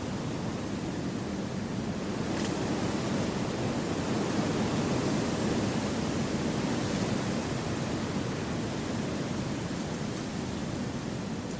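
Wind blowing steadily through forest trees, an even rushing that swells a little in the middle.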